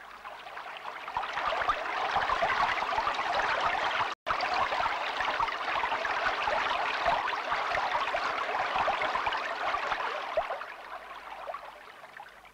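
Rushing, churning water, fading in over the first second or so and fading out near the end, with a momentary break about four seconds in.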